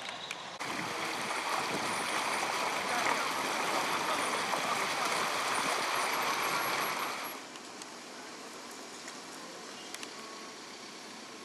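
Steady rush of water, loud for about seven seconds, then cutting off suddenly to a quieter background hiss.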